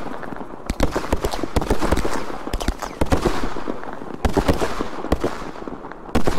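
Fireworks firing in quick succession: rapid sharp bangs and crackling, in clusters about every second, with the loudest bang near the end.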